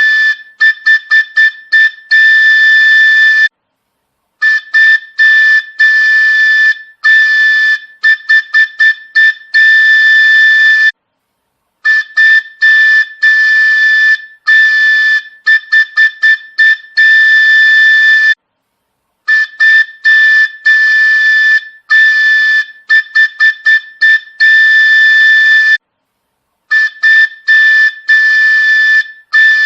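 Train horn sound effect: one high, steady horn tone sounded in a pattern of long and short blasts with quick runs of short toots. The sequence repeats about every seven and a half seconds, with a brief silence between repeats.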